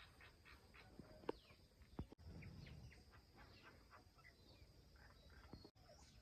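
Faint outdoor ambience with small birds chirping in short, quick calls, and a sharp click a little over a second in.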